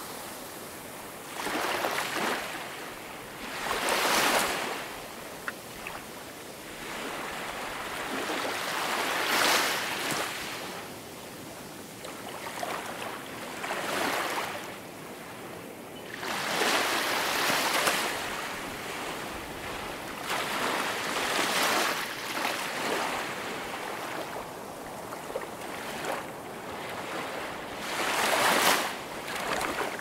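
Small waves washing up onto a pebble beach, each one a swelling and fading hiss of water over the stones, arriving every few seconds.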